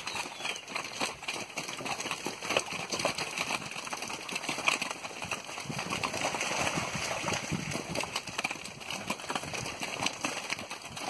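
Hooves of a group of weaned steer calves running over wet, muddy ground: a jumble of many quick, irregular footfalls.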